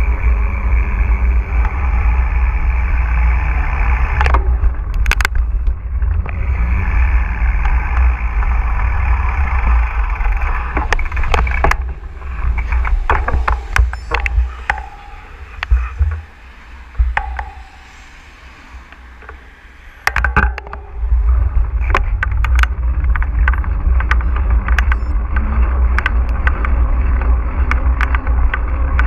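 Wind rumble on a GoPro's microphone while riding a mountain bike, with the bike's rattles and sharp knocks over rough ground. The noise drops away for a few seconds past the middle, then comes back suddenly.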